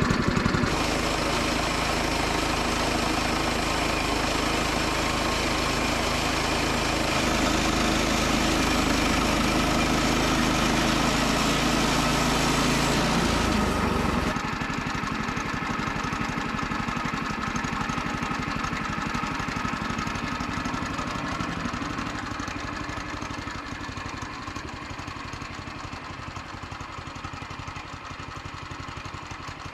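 Gas engine of a Woodland Mills portable bandsaw mill running steadily under load as the mill works through the log. About 14 seconds in, the sound drops abruptly to a quieter, steady engine hum, which fades further near the end.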